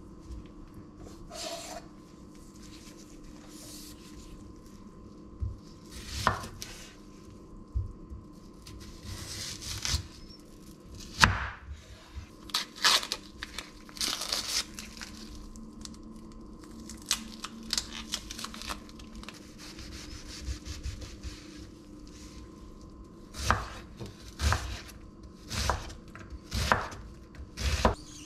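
Onion being peeled and cut on a bamboo cutting board: dry papery skin crinkling and tearing, with scattered knife knocks on the wood. Near the end, about five sharp knife chops on the board as the onion is diced. A steady faint hum runs underneath.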